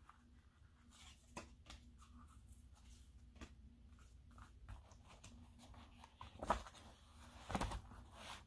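Quiet handling of paper and cards: soft rustles and light taps, with two louder knocks in the second half as items are set down on a stack.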